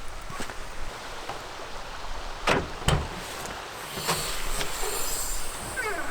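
Two sharp knocks close together about two and a half seconds in, among lighter clicks and a stretch of rustling in the second half, like gear or a door being handled.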